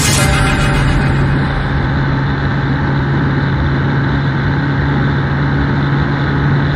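Bajaj Pulsar 150's single-cylinder engine running steadily high in its rev range, near 9,000 rpm, as the motorcycle holds about 125–130 km/h close to its top speed.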